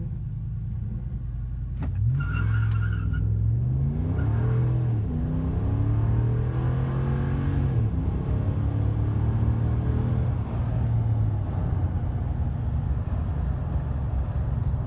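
2017 RAM's 5.7-litre Hemi V8, fitted with a Mopar cold air intake, at full throttle from a standstill, heard inside the cab: the engine note climbs and drops back at each of several automatic upshifts. A brief high squeal about two seconds in as the tires spin.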